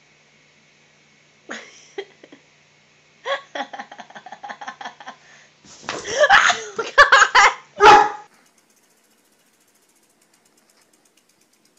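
A large dog barks and a person laughs, with thumps and scrabbling as the dog lunges at a cat; loudest from about six to eight seconds in.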